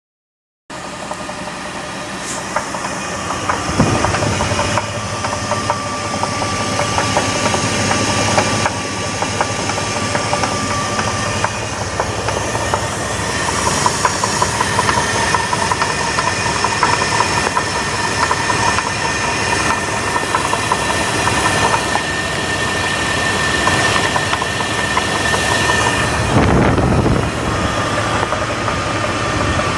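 A 2000 Jeep Grand Cherokee's 4.7-litre V8 idling with a rapid knocking that the owner places in the upper engine. A thin, steady chirping squeal runs over the knock.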